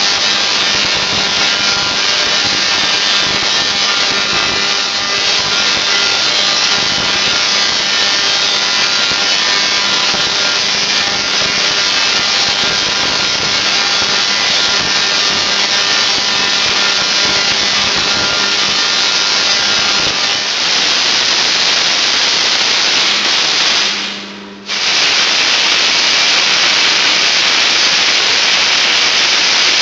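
Tesla coil discharging, a continuous harsh buzz of sparks as its arcs strike a hanging metal cylinder. The buzz cuts out for under a second about 24 seconds in, then starts again.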